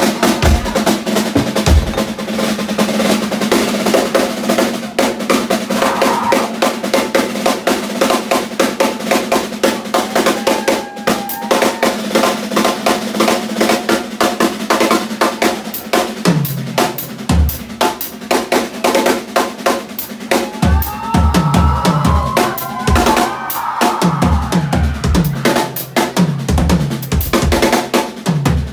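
Live band playing an instrumental stretch without vocals: a Yamaha drum kit plays rapid snare and cymbal hits over a steady held low note. Bass drum kicks come in past the halfway point and then keep a steady beat.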